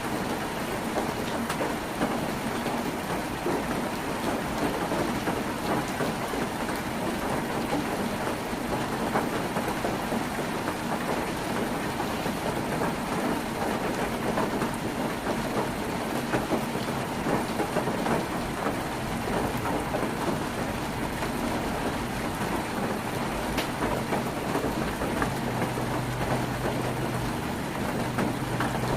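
Heavy rain drumming steadily on a tin roof: a dense, even patter of countless drops.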